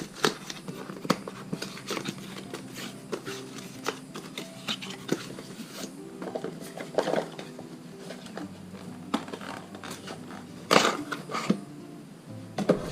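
Packaging being handled: scattered light clicks, taps and crinkling of plastic and cardboard as the contents of a camera bundle box are taken out, with a louder burst of rustling about eleven seconds in.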